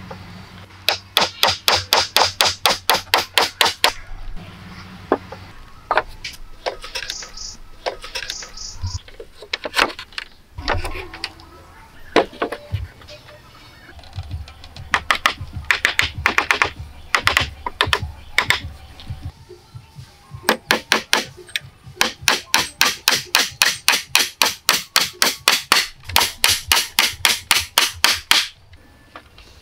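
Small hand hatchet chopping into a round wooden pole: quick runs of sharp wooden knocks, three to five a second, broken by short pauses and a few single strikes.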